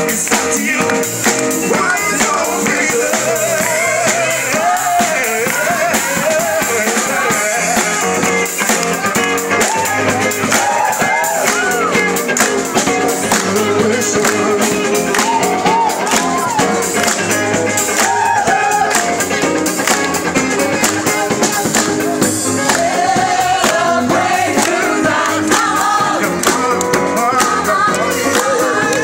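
Live street band playing: a group of singers over an electric guitar and percussion with a steady beat.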